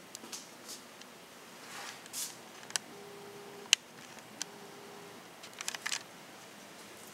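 Handling noise from a handheld camera: scattered light clicks and rustles, one sharp click a little past the middle and a quick run of clicks near the end, with a faint hum heard twice in between.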